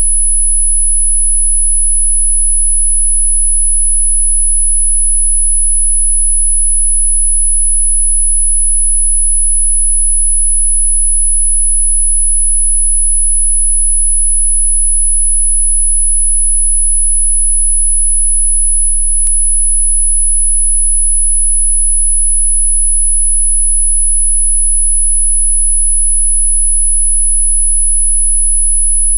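A very high, thin pure tone held steady at one pitch, played as a 'healing frequency' for hiccups, over a faint low hum. A single click sounds about nineteen seconds in.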